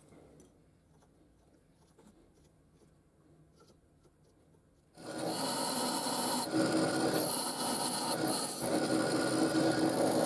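Faint light ticks of the knife blank being handled, then about five seconds in a drill bit suddenly starts boring through the blank's steel handle: a loud, steady cutting noise with a few brief dips.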